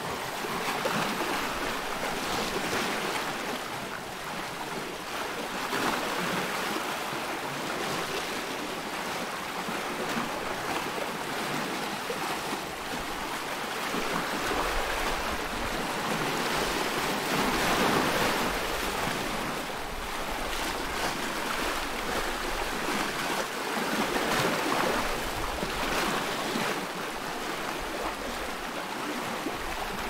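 Sea waves breaking on a rocky shore: a continuous rush of surf that swells and ebbs every several seconds, loudest around eighteen seconds in.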